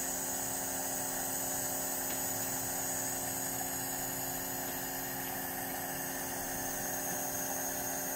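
Omron compressor nebulizer running with a steady hum and hiss while it turns saline and albuterol solution into mist for an infant's face mask.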